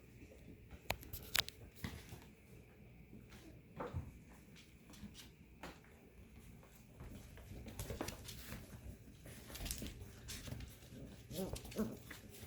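Goldendoodle puppies moving about, with scattered small clicks and taps and a few faint whimpers near the end.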